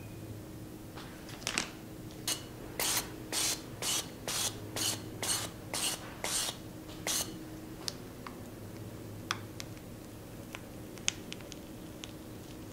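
Release-oil spray being sprayed onto a metal financier mould in about ten short hissing puffs, roughly two a second, to grease it before the batter goes in. Faint small clicks follow.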